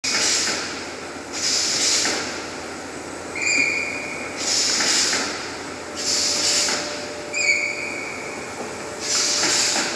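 Fully automatic aerosol filling machine running through its cycle, which repeats about every four and a half seconds: a short high whistle, then two bursts of compressed-air hiss from its pneumatics.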